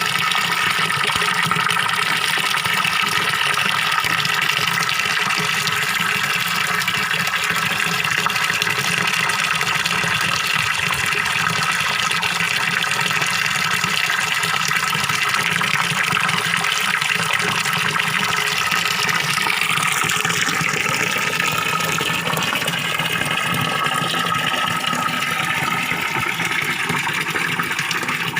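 Small pond waterfall: water pouring and splashing steadily into a fish pond.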